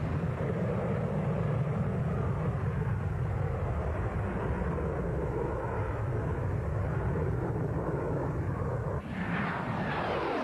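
Twin Tumansky R-15 turbojets of a MiG-25 jet fighter flying low past, a steady deep rumble. About nine seconds in the sound changes abruptly to a phasing whine whose bands sweep downward as the jet approaches again.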